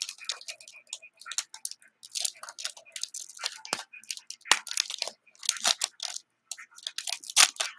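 Plastic foil wrapper of a trading-card pack being peeled and torn open by hand, crinkling and crackling in short irregular bursts.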